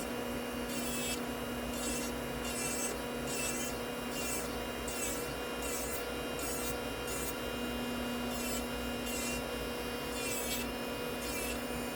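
Cordless electric nail drill (e-file) running with a steady whine while its bit grinds dip powder off a fingernail in short passes, a rasping scrape about every half second to second. A nail dust collector fan hums underneath.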